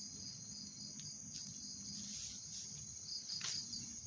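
Night insects, typical of crickets, chirping: a steady high trill with regular pulsed chirps a couple of times a second. There is a brief louder rustle or knock about three and a half seconds in.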